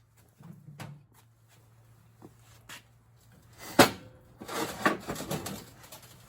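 Objects being handled: a few light clicks, a single sharp knock about four seconds in, then about a second of clattering, over a steady low hum.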